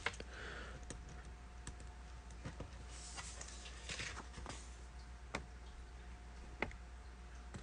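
Faint, scattered light clicks and taps, about one every second or so, over low room hiss.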